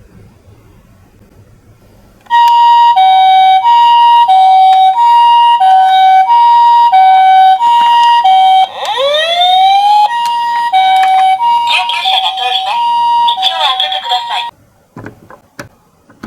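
Electronic siren of a toy miniature ambulance playing the Japanese two-tone hi-lo ambulance pattern, one tone about every half second, starting about two seconds in. About halfway through it breaks into a rising wail, then the two-tone pattern resumes until it cuts off a couple of seconds before the end.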